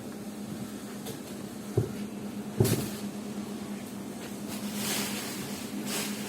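Workshop machinery humming steadily, most likely the CNC foam-cutting machine, with two sharp knocks about two seconds in, the second louder, and two brief swells of rushing hiss near the end.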